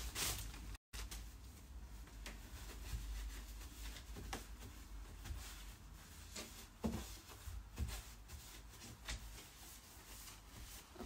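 A wet wipe rubbing over a door around its lever handle: faint scattered rustles and light knocks, with a couple of sharper clicks of the handle partway through. A low steady hum runs underneath.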